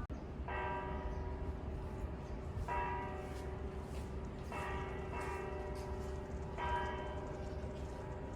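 A metal bell struck four times, about two seconds apart, each strike ringing on and dying away under a steady lingering hum.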